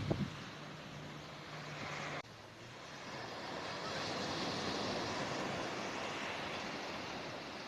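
Sea surf rushing on a beach, swelling to a peak about halfway through and easing off. Before a cut about two seconds in, there is a loud knock and a steady low hum.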